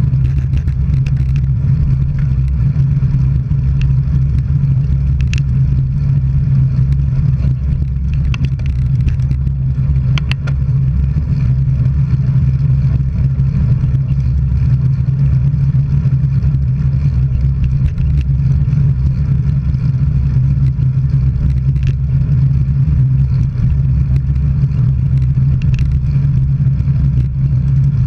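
Steady riding noise of a bicycle rolling at speed along the road, a constant low hum with a few light clicks in the first half.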